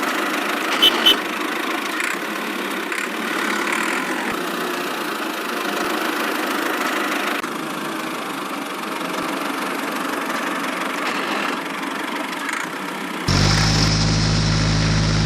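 A miniature DIY construction machine's motor running steadily, with two brief clicks about a second in. Near the end the sound cuts abruptly to a louder, deeper hum made of several steady tones.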